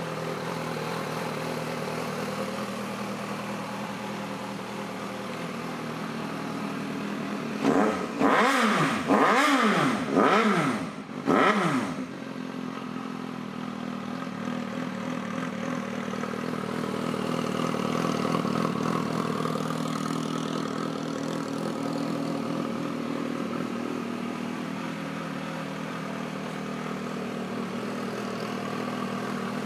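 Suzuki GSR 750's inline-four engine idling steadily. A little over a quarter of the way in it is blipped four times in quick succession, the pitch rising and falling with each rev, before settling back to idle.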